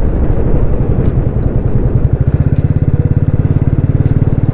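Motorcycle engine running at a steady cruise while riding, its exhaust beat even and rapid.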